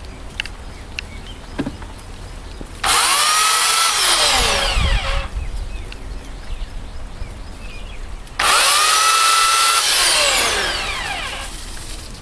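Stramm 2000W electric chainsaw run in two short bursts of about two to three seconds each. Each time, the motor's whine rises quickly, holds steady, then falls away as it winds down after the trigger is released.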